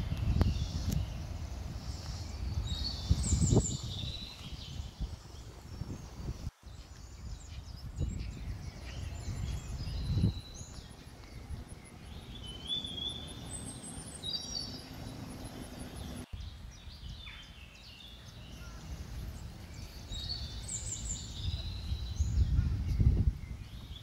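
Birds chirping in short scattered calls over a low, uneven rumble on the microphone.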